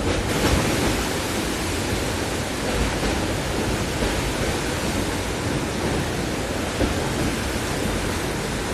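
Steady rushing noise of a train running through floodwater, water spray and rumble blended into one even roar.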